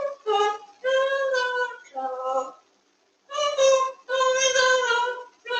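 Pet parrot mimicking human speech in a high, childlike sing-song voice: two runs of words with a short pause in the middle.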